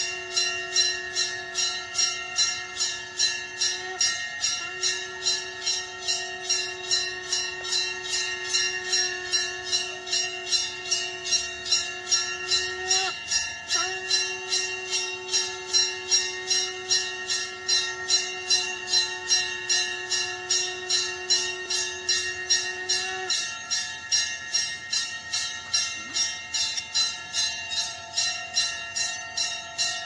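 Temple bell rung in rapid, even strikes throughout, with a shankh (conch shell) blown over it in long held notes. The conch breaks briefly for breath about 4 and 13 seconds in and stops a little after 23 seconds, leaving the bell ringing alone.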